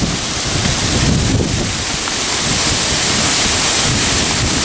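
Steady rush of a waterfall pouring down a rock cliff face, with wind buffeting the microphone underneath.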